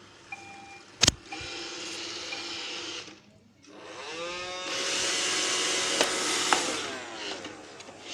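iRobot Roomba 620 robot vacuum starting to clean after its Clean button is pressed: a sharp click, then its motors run for about two seconds and stop, then spin up again with a rising whine and run steadily, fading near the end.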